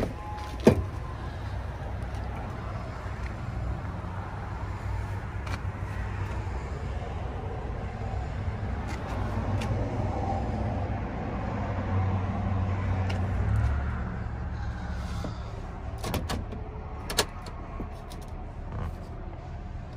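A sharp click about a second in, as the 2010 Acura MDX's rear door is opened, over a steady low rumble, with a few more clicks in the last few seconds.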